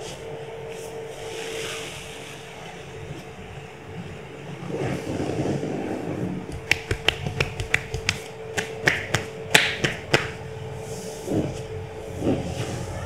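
A quick, irregular run of about a dozen sharp, slap-like clicks lasting some three seconds, over a steady low hum.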